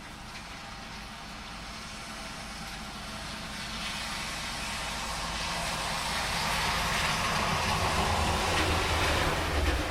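A car on a wet road approaching under steady rain, its tyre hiss swelling over several seconds with a low rumble, passing closest near the end and then falling away quickly.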